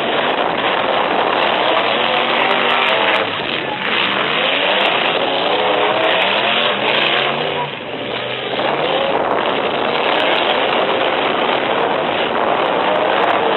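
Engines of several full-size demolition-derby trucks revving hard together, their pitch rising and falling over and over in a constant loud din.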